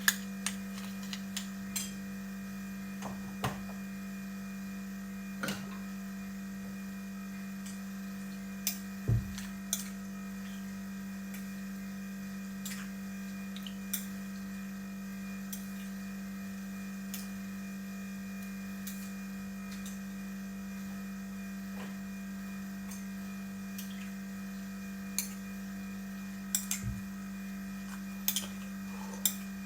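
A steady low hum at one unchanging pitch, with scattered light clicks and a few louder knocks, the loudest about nine seconds in and near the end.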